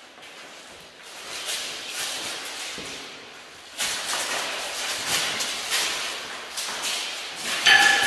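Mail armour jingling and feet scuffing on a wooden floor as two armoured fencers close in and grapple, with a quick run of clinks and knocks from about halfway. Near the end a loud knock sets off a steady metallic ringing.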